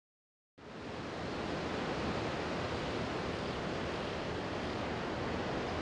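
Steady rush of ocean surf with wind noise on the microphone, cutting in abruptly about half a second in.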